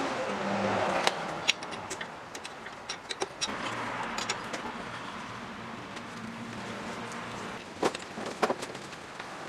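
Scattered sharp metallic clicks and clinks of a wrench and hands working the band saw's upper blade guide bracket, with two louder knocks near the end, against a steady background hiss.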